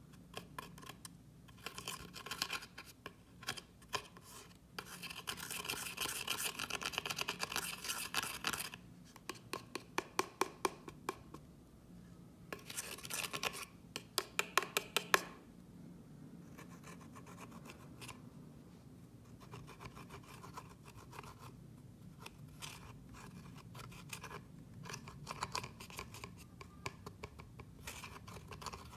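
A small spatula scraping pressed eyeshadow out of a palette pan: runs of quick scratching strokes, the sharpest and loudest about halfway through, then softer scraping.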